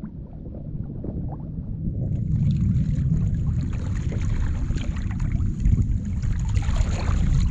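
Wind buffeting the microphone with water sloshing against a kayak hull, a steady rumble that grows louder and hissier about two seconds in, with a few small splashes near the end.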